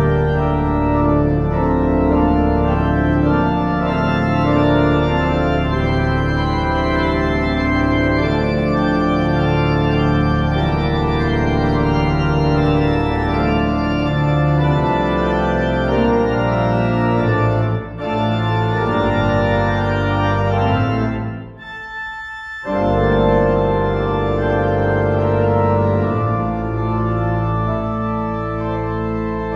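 Church organ played from a multi-manual console: sustained chords over low bass notes, pausing briefly about three quarters of the way through before the music resumes.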